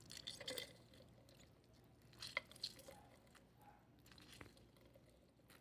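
Near silence with a few faint squishes and small clicks: lemon halves being squeezed by hand into a bowl.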